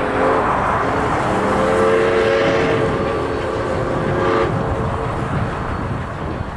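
Steam whistle of Canadian National 7470, a 1921 O-18a steam locomotive: a short blast ending just after the start, then a long steady blast from about a second in that cuts off at about four and a half seconds. A low rumble of the approaching train continues underneath and after.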